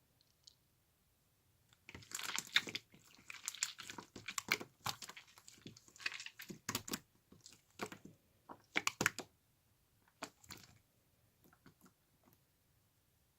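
Irregular crunching and crinkling: dense clusters of sharp crackles that start about two seconds in and thin out to a few faint clicks after about eleven seconds.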